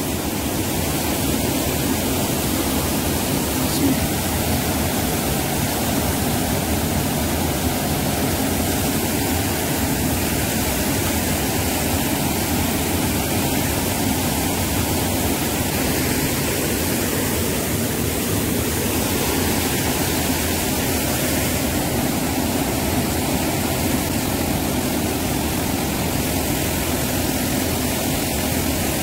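Swollen, muddy floodwater rushing through whitewater at the foot of the bank, a steady loud rush of water.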